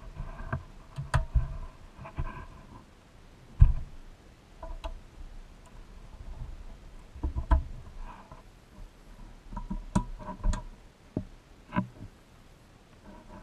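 Small parts being fitted onto a vintage Tonka fire truck's metal body: irregular light clicks, taps and knocks as pieces are pressed into place and handled, with one louder knock about a third of the way in.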